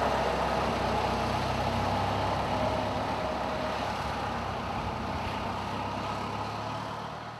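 Air-cooled Tatra T-928-14 V8 diesel of an OT-64 SKOT armoured personnel carrier running as the vehicle drives away, its steady engine note fading gradually.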